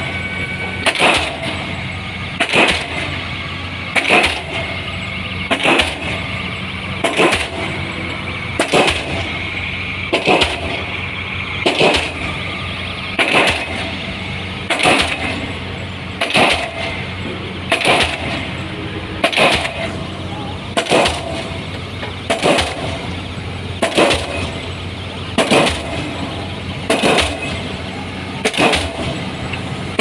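Diesel pile hammer driving a precast concrete pile: a steady run of sharp, heavy blows about every second and a half, each followed by weaker knocks, over a steady low engine hum.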